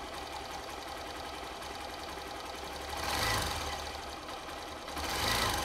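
Hero Xpulse 200's single-cylinder engine running, with a steady mechanical valve-train noise, swelling in level twice: about three seconds in and near the end. The owner takes this noise for valve trouble that began after the engine overheated, and suspects the valve clearances are out of spec.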